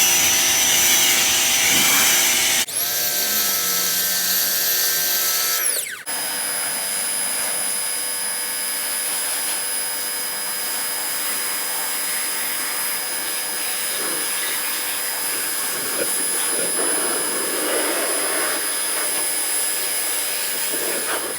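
Ryobi 1900 psi electric pressure washer running and spraying soap through a foam cannon: a steady motor whine over the hiss of the spray. The pitch of the whine shifts abruptly about three seconds in and again about six seconds in.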